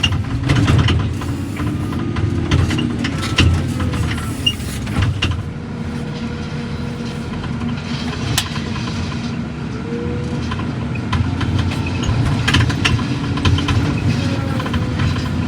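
A vehicle engine running steadily, with scattered knocks and rattles over it.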